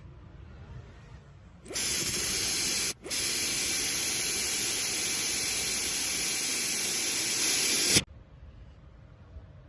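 A loud, steady hiss of a pressurised spray or air jet, in two bursts: a short one about two seconds in, a brief stop, then a long one of about five seconds that cuts off suddenly.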